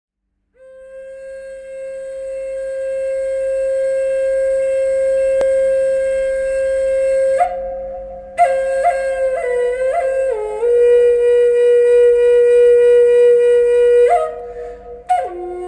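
Solo wind-instrument music: one long held note that swells in loudness, a short break, then a slow phrase of notes stepping down in pitch to a lower held note.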